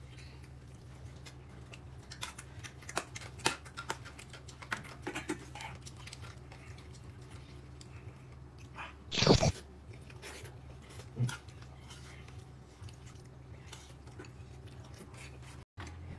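A person chewing and biting food, with scattered small crunchy clicks and one louder, longer noisy burst about nine seconds in, over a low steady hum.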